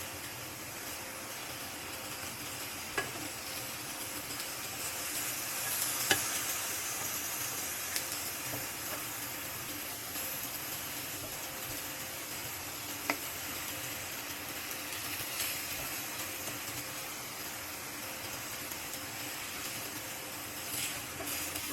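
Tortang talong, an eggplant and egg omelette, sizzling steadily in hot oil in a frying pan, with a few sharp clicks of a utensil.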